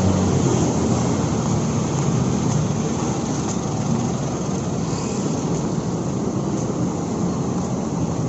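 Street traffic: a steady low noise of vehicle engines and tyres on the road, with no single vehicle standing out.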